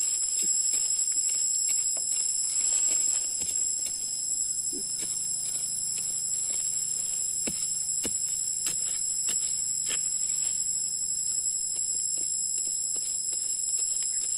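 A steady, high-pitched insect drone of several shrill tones held without a break, with scattered clicks and scrapes of a long knife blade digging into dry forest soil, most frequent in the second half.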